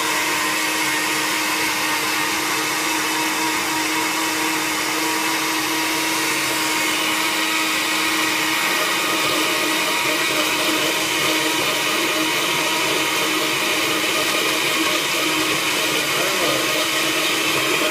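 Budget countertop blender running at its lowest speed, churning a smoothie of fruit, spinach and ice; the motor is screaming a bit, with a steady whine that turns rougher about halfway through.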